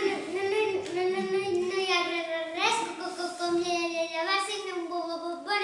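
A child singing a slow tune in long held notes.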